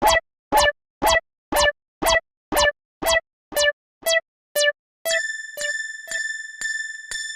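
Electronic level-crossing warning bell going 'kan-kan', about two sharp pitched strikes a second, each with a short dropping twang. About five seconds in it gives way to a steadier, higher ringing tone with fainter repeated strikes.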